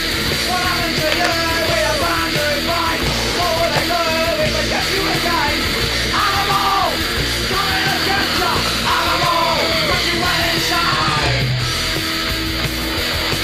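Punk rock song with fast, dense band sound and shouted vocals; the vocals drop out about eleven seconds in while the band plays on.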